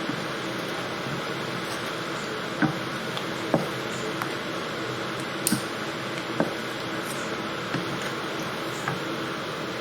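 Curry sauce with coconut milk cooking in a pan on the hob: a steady hiss with a handful of short sharp clicks scattered through it, about one every second or so.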